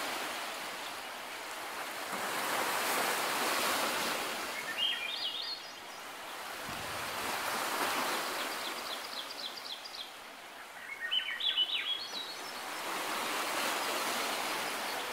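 Surf washing over a rocky shore, swelling and ebbing about every five seconds. Three short runs of quick, high chirps from a bird rise over it, near the middle and again a little later.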